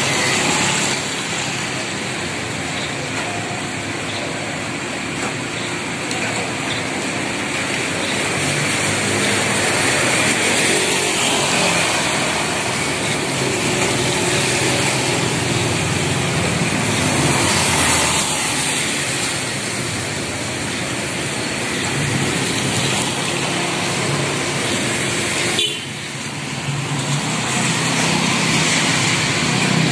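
Steady street traffic: vehicle engines running and passing, with a brief lull near the end.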